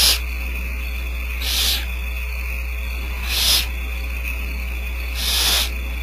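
Barn owl owlets' food-begging hisses: four drawn-out hisses about two seconds apart, over a steady low hum.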